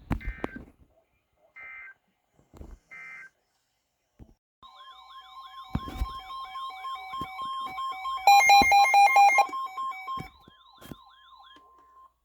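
Emergency Alert System signalling between two broadcast alerts: three short screeching digital data bursts about a second apart, then a steady alert tone with a warbling siren-like wail over it. About eight seconds in, a burst of loud rapid beeping is the loudest part.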